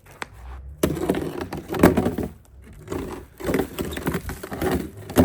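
Ice crunching and cracking in four or five crackling bursts about a second apart.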